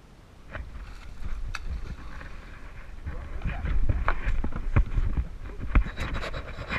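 Irregular knocks and thumps of people moving about on a fiberglass boat, with rumbling handling noise on the camera, starting about half a second in and getting louder.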